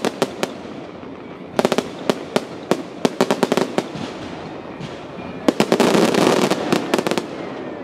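Fireworks going off in quick volleys of sharp cracks and bangs: a rapid string right at the start and another from about one and a half to four seconds in. About five and a half seconds in comes a louder, denser burst lasting over a second.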